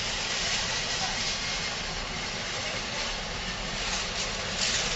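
Steady outdoor background noise, an even hiss with no distinct events.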